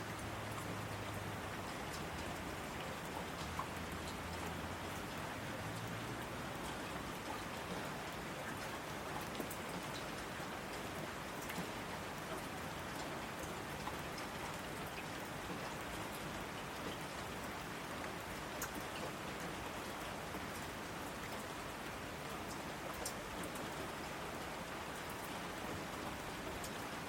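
Steady rain falling, with single drops ticking sharply here and there through the patter. A faint low hum sits under it for the first several seconds.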